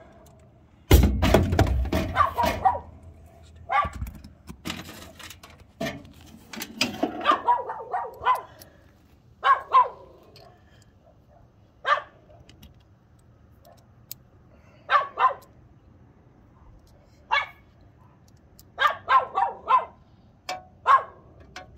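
A dog barking repeatedly, in short clusters of barks every few seconds. A loud thump about a second in.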